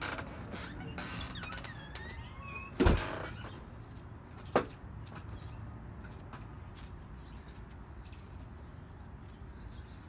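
Outdoor background with birds chirping in the first few seconds. There is a loud thump about three seconds in and a sharp click a second and a half later, then only a steady low rumble. The tornado sirens are not yet sounding.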